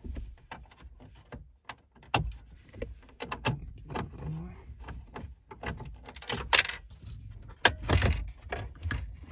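Screwdriver clicking and scraping as the screws holding the factory radio in a Jeep Liberty's dash are turned out, with the plastic dash trim bezel rattling and knocking as it is handled. The loudest knocks come about six and eight seconds in.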